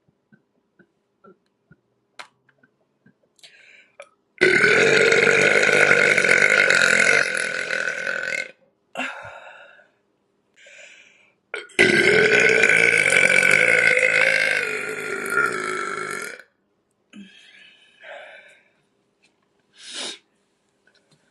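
A woman burping: two long, loud burps of about four seconds each, the first about four seconds in and the second a few seconds later, with a few short, softer sounds between and after them.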